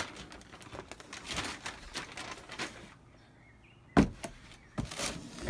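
Handling noise: scattered rustles and light clicks from an airsoft rifle being shifted in its cardboard packing box, then a sharp knock about four seconds in and a second one shortly after.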